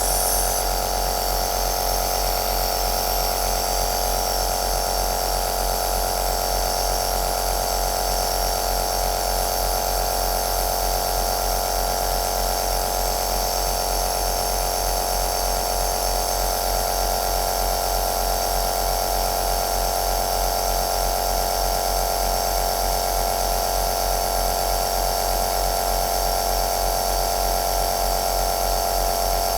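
Compressor nebulizer running steadily: an even motor hum with a hiss of air.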